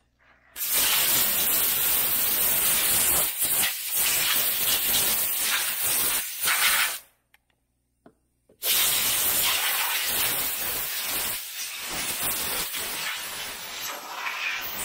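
Compressed-air blow gun hissing in two long blasts, with a break of about a second and a half between them, blowing sanding dust off a wooden hammer handle.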